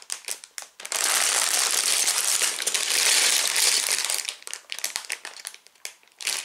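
Plastic Lego parts bags crinkling as they are handled. Scattered crackles at first, then dense continuous crinkling from about a second in to about four seconds, thinning out to occasional crackles near the end.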